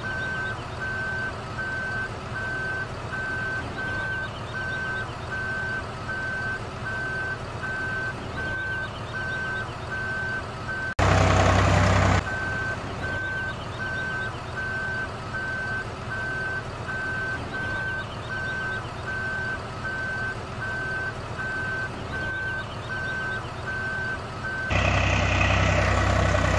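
Truck reversing alarm beeping evenly, about three beeps every two seconds, over a low truck engine running, as the dump trailer tips its load. Halfway through, a louder engine burst briefly covers the beeping, and near the end the beeping stops and the engine gets louder.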